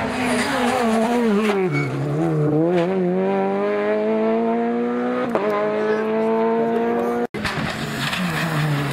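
Rally car engine revving hard as the car takes a crest jump and accelerates away. Its pitch wavers, then rises steadily, with an upshift about five seconds in. After a sudden cut near the end, another rally car's engine is heard approaching.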